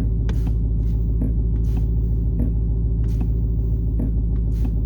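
A 2020 Dodge Challenger Hellcat Redeye's supercharged 6.2-litre V8 idles with a steady low rumble. Over it, sharp clicks repeat from the automatic transmission shifter, roughly every half second to second. The clicking comes when the brake is pressed in park and is an unexplained fault, felt as vibration in the shifter column.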